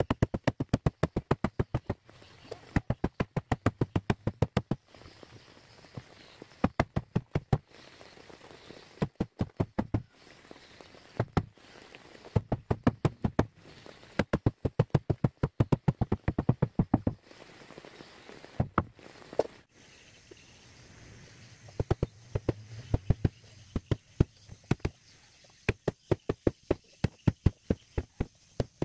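Wooden boat hull being hammered, heard as rapid bursts of sharp knocks, many blows a second, because the work is sped up in time-lapse. The bursts come every second or two, with short pauses between them.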